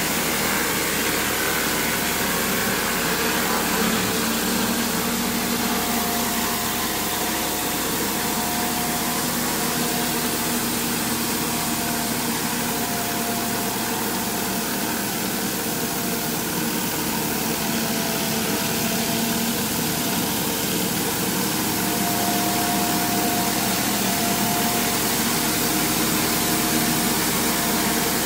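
Pressure washer rig's engine running steadily, with the hiss of high-pressure water spraying concrete.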